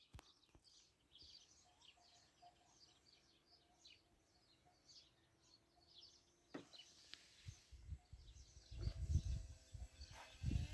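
Birds chirping steadily in the background. A sharp click comes a little after six and a half seconds. After that, low irregular rumbles from wind buffeting the microphone grow louder toward the end.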